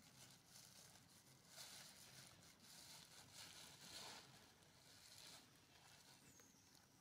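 Near silence: faint outdoor ambience with a few soft swells of rustling noise.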